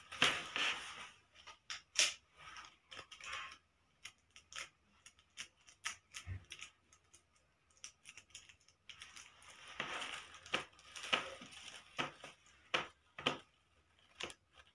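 Paper being handled while a craft puppet is put together: crinkling and rustling with many short sharp clicks, busy at the start, sparse in the middle, then busy again in the second half.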